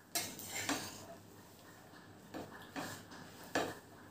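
A metal serving spoon scraping and knocking against the side of a pressure cooker pot as cooked biryani rice is stirred and fluffed: about five short, separate scrapes and knocks at uneven intervals.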